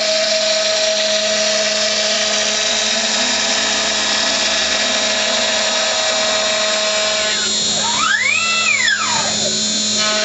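CNC router running steadily while routing a guitar neck, a constant high spindle whine over cutting hiss. About eight seconds in, a second whine rises, holds briefly and falls again.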